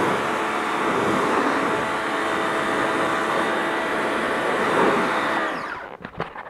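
Pressure washer running: a steady hiss of the water jet on the truck's front bumper and wheel over a whining motor. It cuts off about five and a half seconds in, followed by a few short clicks.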